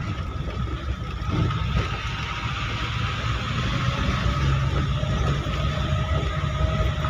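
Engine and tyre noise of a moving vehicle heard from inside its cabin: a steady low rumble with a faint constant whine above it.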